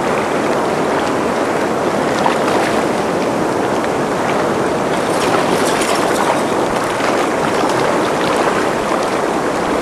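Fast, churning river water rushing through the tailwater below a dam: a loud, steady rush of white water, with a few sharper splashes about five to six seconds in.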